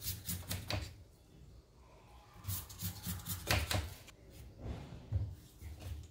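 A knife scoring and peeling the fibrous outer layers off a banana stem on a wooden cutting board: short bursts of crisp scraping and tearing with low taps, in three spells.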